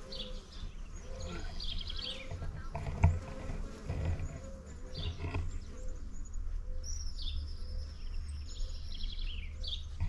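Small birds chirping in short repeated phrases, with bees buzzing faintly around flowering plants and a steady low rumble underneath. A single knock about three seconds in.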